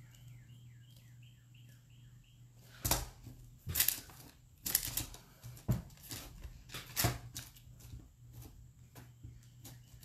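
A run of short, falling bird chirps, a few a second, fades out about a second and a half in. Then come a series of loud rustles and knocks from paper and objects being handled on a tabletop.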